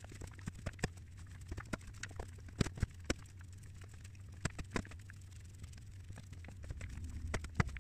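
Hands squeezing and shaping raw minced beef in a stainless steel bowl: irregular wet smacks and clicks, a few a second, over a low steady hum.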